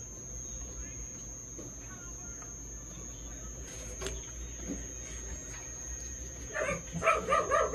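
A steady low hum. About six and a half seconds in, a dog starts barking: a rapid run of short barks, several a second, which are the loudest thing here.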